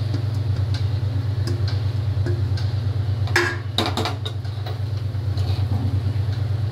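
Steel spatula scraping and clinking against a steel kadhai while cooked rice is folded into stir-fried vegetables, with a flurry of louder scrapes and knocks about three and a half seconds in. A steady low mechanical hum runs underneath.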